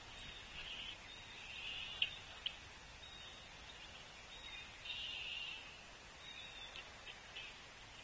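Songbirds calling and chattering in a steady high-pitched stream, with two sharp clicks about two seconds in.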